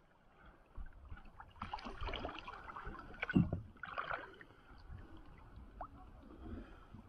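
Water sloshing and gurgling around a plastic kayak hull as it is paddled, in a few irregular splashes, with one louder thump about three and a half seconds in.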